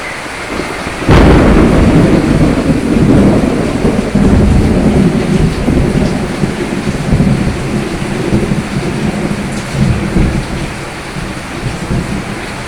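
Steady rain with a sudden clap of thunder about a second in, followed by a long low rumble that slowly dies away.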